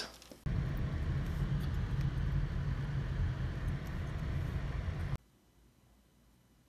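Steady low rumble of a road vehicle. It starts abruptly about half a second in and cuts off suddenly near the end.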